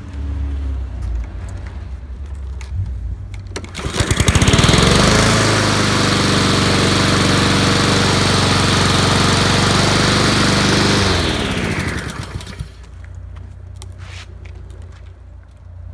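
Honda engine on a Husqvarna rear-wheel-drive push mower starting about four seconds in, running steadily for about seven seconds, then shut off and winding down to a stop with falling pitch.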